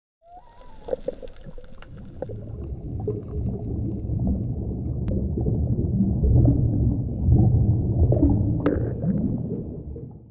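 Muffled underwater rumble and gurgling with scattered clicks and a brief rising whistle near the start. It swells through the middle and fades away just before the end.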